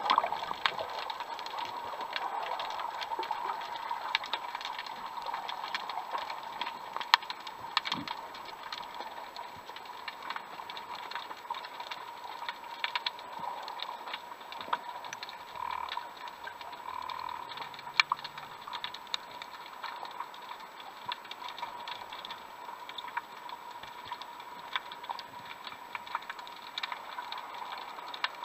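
Underwater ambience picked up by a camera in its housing: a steady hiss with irregular sharp clicks and crackles scattered throughout.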